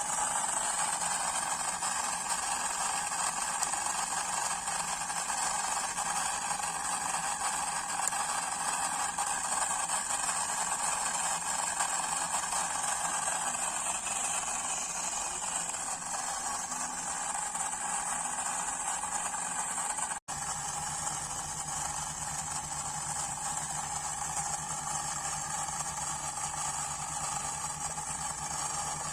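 A miniature diesel-generator model running steadily with a whirring, mechanical noise. It drops out for an instant about twenty seconds in and carries on, now with a low steady hum under it.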